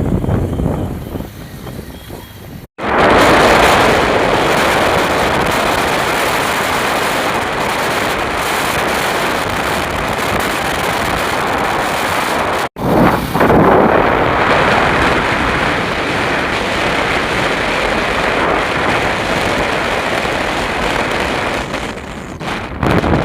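Waterfall's steady roar of rushing water. It is broken twice by sudden cuts, a few seconds in and about halfway through.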